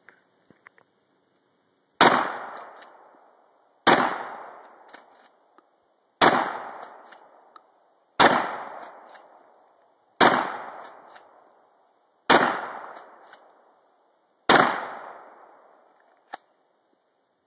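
Seven gunshots, slowly and evenly paced about two seconds apart, each followed by a long echoing tail, with a sharp click near the end.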